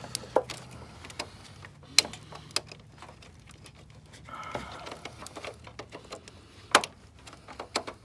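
Hands handling a battery cable and plastic clips in a minivan's engine bay: scattered small clicks and knocks, the sharpest about two seconds in and again near seven seconds, over a faint low hum.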